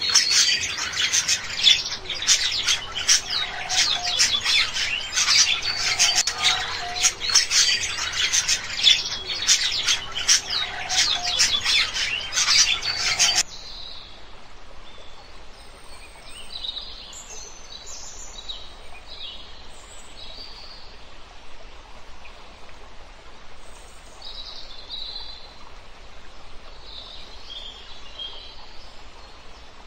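Many small birds chirping rapidly in a dense chorus. About halfway through it cuts off abruptly, leaving scattered, quieter bird calls over faint steady background noise.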